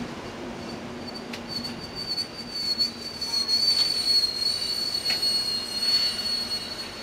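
A commuter rail train's wheels passing, with a steady high-pitched wheel squeal that grows louder through the middle of the pass. A few sharp clicks come from the wheels as the train rolls by.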